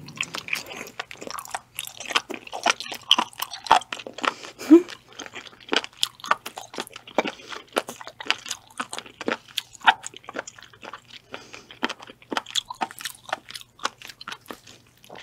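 Close-miked chewing of raw spoon worm (gaebul): a dense run of wet, crunchy clicks and squelches as the firm, rubbery flesh is bitten and chewed.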